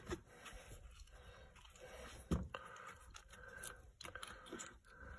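Segway Snarler ATV's oil fill dipstick cap being unscrewed by hand: faint scraping and light clicks, with a sharper click a little over two seconds in.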